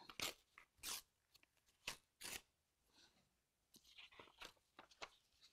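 A sheet of drawing paper being torn along its edges in a series of short rips.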